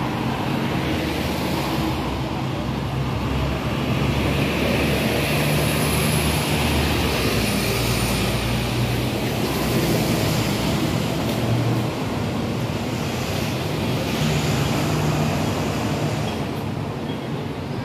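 Steady city street traffic noise: vehicle engines running and passing, with low engine tones that rise and fade and a faint high whine midway.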